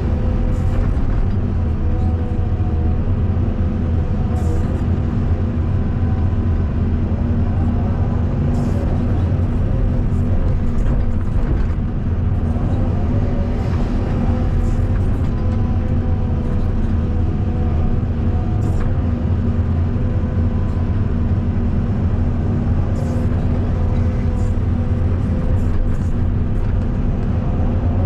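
Caterpillar 320D2 hydraulic excavator's diesel engine running steadily under load while digging and loading a truck, a constant low hum with a few faint clicks.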